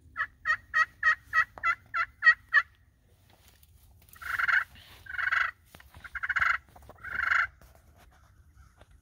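Hand-held friction turkey call worked with a striker, giving a run of nine quick, evenly spaced turkey yelps, then, after a short pause, four longer raspy calls about a second apart.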